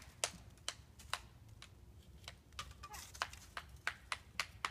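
Sharp, irregular clicks and crackles close by, two or three a second, over a low rumble.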